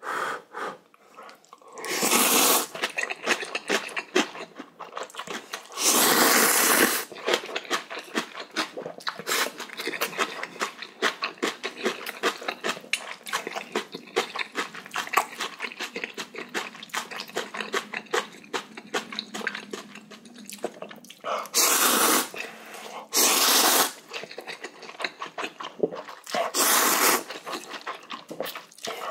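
Close-up slurping and chewing of spicy instant ramen noodles: about five long, loud slurps, with fast wet chewing clicks in between.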